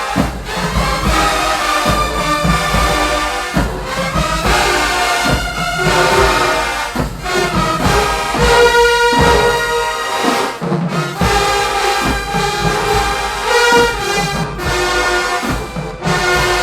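Marching band playing loudly: held brass chords and a melody over drum hits.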